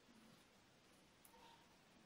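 Near silence, with a couple of faint clicks from knitting needles as stitches are worked.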